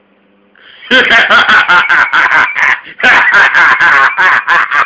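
A man's voice, very loud and with no clear words, starting about a second in and running on in quick, changing-pitch bursts, recorded on a mobile phone.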